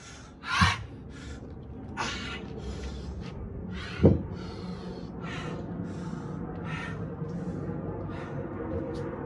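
A man breathing hard after a set of dumbbell clean and presses, with short forceful exhales about every half second to second, the loudest about half a second in. About four seconds in, a single sharp thud as the 40-pound hex dumbbells are set down on concrete.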